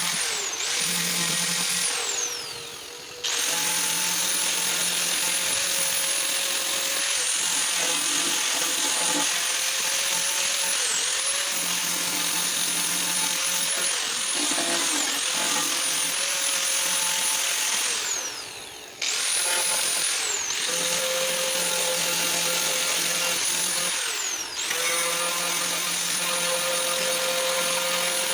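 A high-speed grinder working the body panel of a car's rear fender, running with a steady high whine and hiss. It stops briefly a few times, its pitch falling as it spins down, then starts again.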